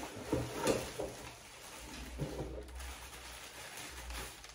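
Packaging being handled: a cardboard box and plastic-wrapped metal rack parts lifted out and rustled, with a few short scrapes and crinkles in the first second and again about two seconds in.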